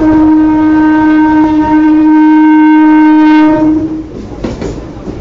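Chennai suburban electric local train's horn sounding one long steady blast, cutting off about four seconds in, after which the rumble and wheel noise of the passing coaches carries on.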